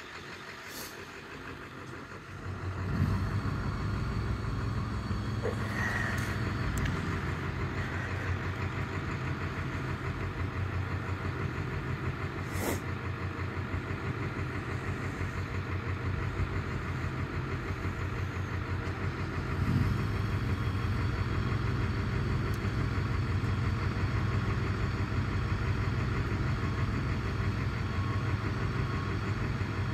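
Engine of the machine moving the shed running steadily with a low drone, coming up in level about three seconds in, with a few sharp clicks over it.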